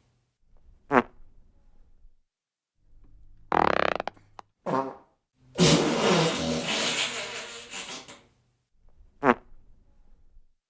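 A string of five fart sound effects with short pauses between: a brief high-pitched one about a second in, a loud buzzy one followed quickly by a short one around the middle, a long one of over two seconds that trails off, and another brief high-pitched one near the end.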